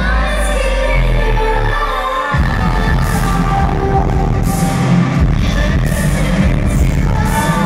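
Synth-pop duo playing live: a woman's sung vocal over synthesizers, with a held deep bass note that gives way about two seconds in to a pulsing electronic beat.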